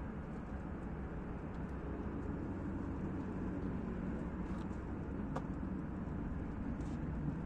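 Steady low engine rumble from nearby vehicles or site machinery, with a few faint ticks.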